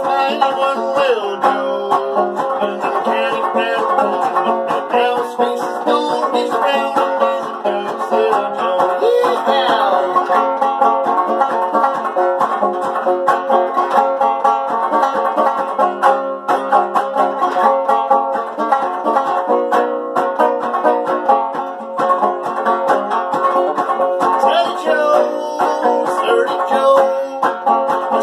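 Banjo played solo: a steady stream of quick plucked notes, with no singing.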